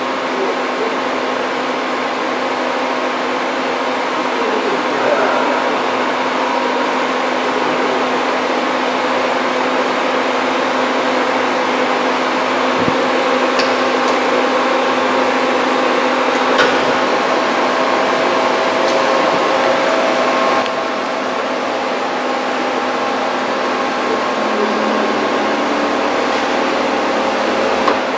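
Large gantry-type machine tool running: a steady machine hum with several steady whining tones that shift a little, and a slight drop in level about three-quarters of the way through.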